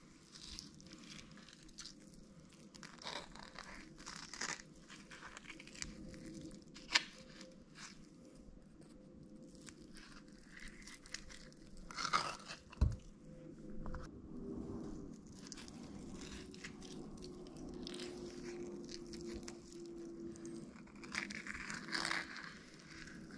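Ripe avocado halves being squeezed and peeled out of their skins by hand, with soft wet squishing and tearing. A few sharp clicks sound through it, and there is one heavier knock about halfway through.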